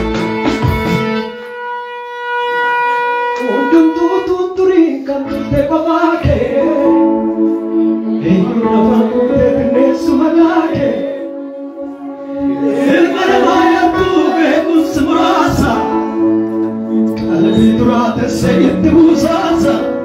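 Live Oromo gospel worship music: a man sings into a microphone over backing instruments holding steady chords. The voice joins about three seconds in and briefly drops away near the middle.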